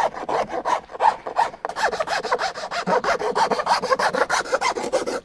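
Rapid, even back-and-forth abrading strokes on the edge of an MDF panel, several a second, as the angled joint of a speaker box is worked by hand to fit.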